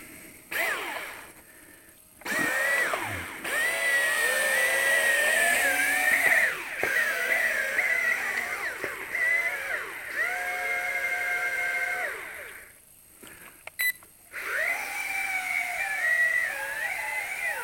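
Twin small electric motors and propellers of a WLTOYS Q202 RC amphibian plane whining, the pitch rising and falling with the throttle. The whine cuts out twice briefly.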